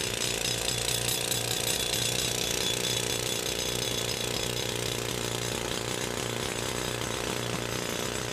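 Machinery running steadily: a constant low hum under an even, harsh mechanical noise.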